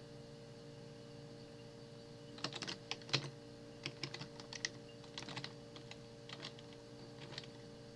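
Computer keyboard being typed in short, irregular bursts of key clicks starting about two and a half seconds in, over a faint steady hum.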